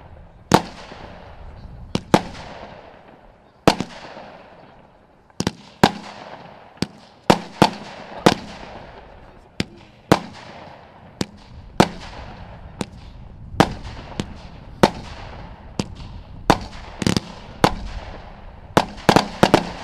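A Dutch Dragon Fireworks 'Sorrow' firework cake firing shot after shot: sharp bangs at irregular spacing, roughly one or two a second, each followed by a fading echo. A quick cluster of shots comes near the end.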